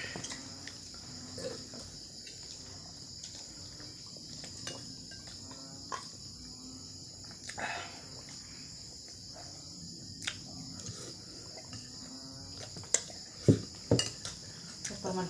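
Steady high chirring of crickets, with a few short clinks and knocks of a plate and utensils; the sharpest clicks come near the end.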